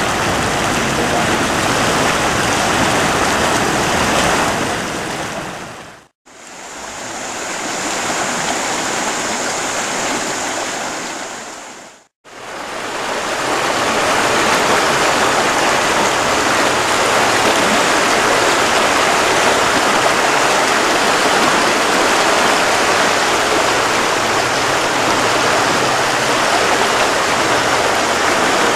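Ganges river water rushing, a loud, steady rush. It fades out and back in twice, about six and twelve seconds in, as one recording gives way to the next; the middle stretch has a thin, steady high hiss over the water.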